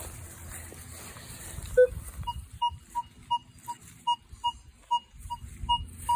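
Minelab Vanquish 440 metal detector sounding off as its coil sweeps over a buried modern quarter. There is one short lower tone, then a run of short, even, high-pitched beeps at about three a second, one for each pass over the coin, which reads around 29–30 on the target ID.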